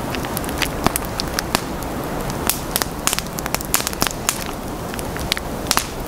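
Wood campfire on a tree stump crackling, with frequent irregular sharp pops over a steady low rush of burning.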